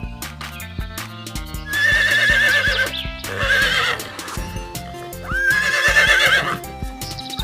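Horse whinnying in several long, wavering calls over background music.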